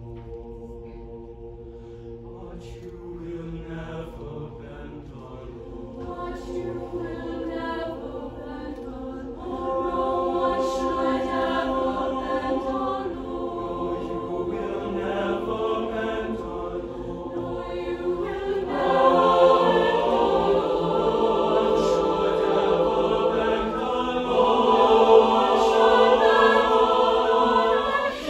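Mixed show choir singing held chords in harmony. It starts soft and swells louder about ten seconds in, then again near twenty seconds.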